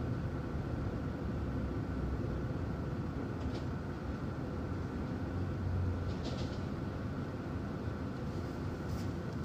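Steady low rumble of a car engine idling, heard from inside the cabin, with a few faint short hisses about 3.5 and 6 seconds in.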